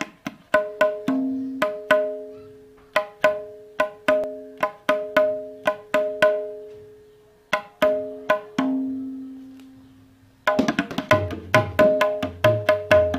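Tabla dayan with a full skin head and iron-filings syahi, struck by the fingers: single strokes that each ring on a clear pitch and die away slowly. About ten and a half seconds in the playing turns into a fast, dense run of strokes with more low sound beneath.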